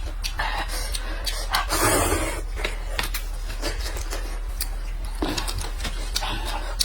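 Eating noises from bowls of noodles: chewing, slurping and small clicks of chopsticks or mouths, with one longer slurp about two seconds in, over a steady low electrical hum.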